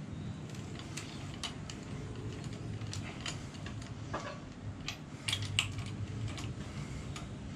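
Socket ratchet on an extension clicking in short, irregular runs as the main cap bolts are run down into the block, with a low steady hum underneath.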